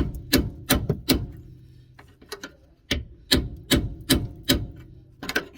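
Hammer blows on the seized, corroded front drop link of a Renault Clio. The blows come two to three a second in two quick runs with a pause of about a second and a half between them, then one more strike near the end.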